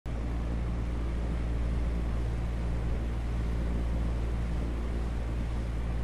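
A steady, low droning hum that holds at one level throughout.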